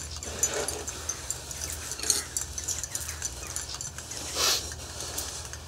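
Faint clinks of tea glasses and spoons on a tray over a steady low room hum, with one short hiss about four and a half seconds in.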